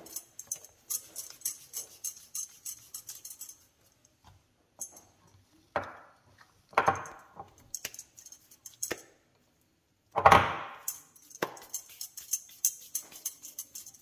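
Hands dividing stiff dough and shaping it into small balls: runs of light jingling and clinking near the start and near the end, with a few dull thumps in between, the loudest about ten seconds in.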